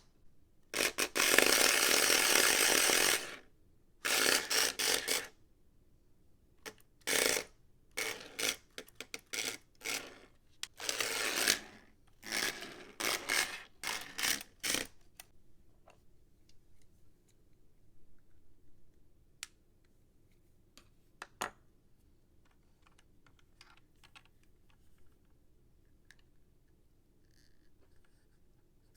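Small electric motor of the Hot Wheels RC Cybertruck toy running in bursts: one run of about two and a half seconds, then a shorter run and many quick spurts, stopping about halfway through.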